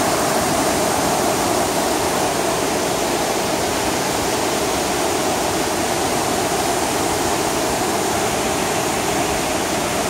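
Düden waterfall and the fast-flowing Düden River cascades rushing: a dense, steady noise of falling and running water, even throughout.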